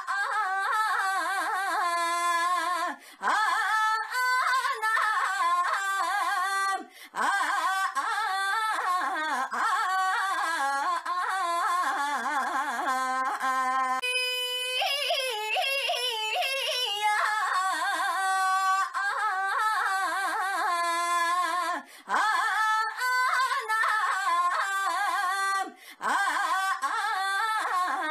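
A woman's high, sing-song voice repeating a long, wavering, drawn-out "ainya" call over and over, with brief breaks between calls. About halfway through it jumps higher and warbles for a few seconds.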